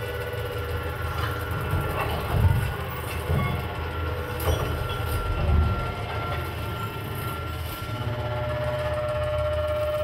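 Electronic noise-drone music: a low rumble under thin steady held tones, swelling louder a few times in the first six seconds, with a new held tone coming in near the end.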